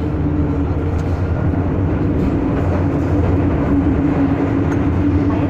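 Interior sound of an MTR Metro-Cammell M-Train electric multiple unit running at steady speed: a continuous rumble of wheels on rail, with a steady motor whine over it.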